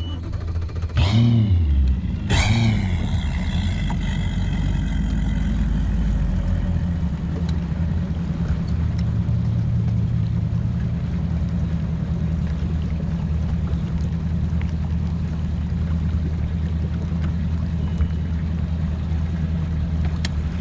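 Bass boat's outboard motor idling steadily, with two quick throttle blips about one and two and a half seconds in.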